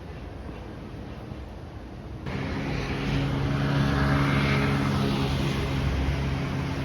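A steady mechanical drone with a low hum starts suddenly about two seconds in and grows a little louder toward the middle.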